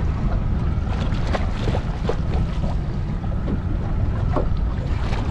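Wind buffeting the microphone in a steady low rumble, with scattered short clicks and knocks from the small aluminium boat and the tackle as a fish is fought on a rod.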